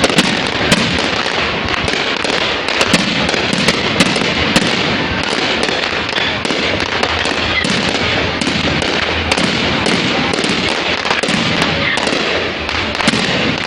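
Fireworks going off in a dense, continuous crackle, with many sharp bangs scattered through it.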